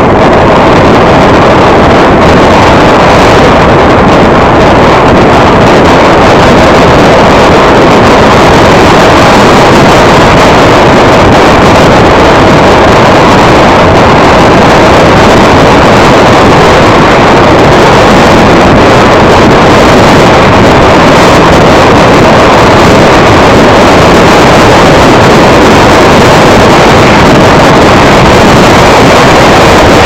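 A car driving steadily along a highway: a constant, very loud rush of road and wind noise heard from inside the car, unchanging throughout.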